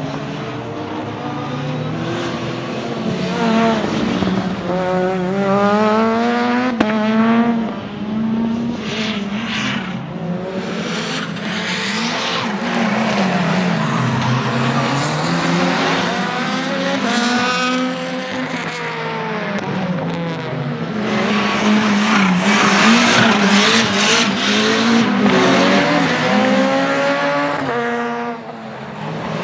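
Renault 5 GT Turbo's tuned, turbocharged 1.4-litre four-cylinder engine at racing pace, revving up and dropping back over and over through the gear changes, with tyres squealing through the corners.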